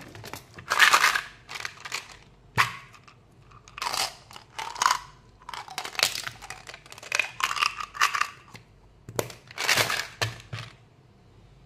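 Plastic bottle of Mentos chewing gum being handled and opened: a series of short crinkling, crunching bursts, with two sharp clicks among them.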